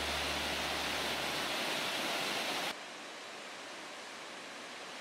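Steady rushing of a mountain stream tumbling over rocks. About halfway through it cuts suddenly to quieter, duller rushing water from a waterfall.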